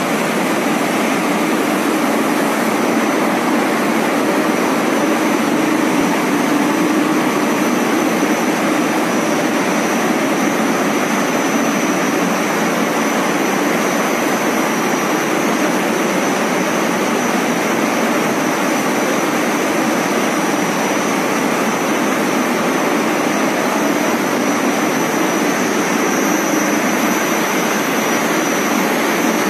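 High-speed BOPP film coating machine running steadily: an even, unbroken mechanical noise with a thin steady high whine over it.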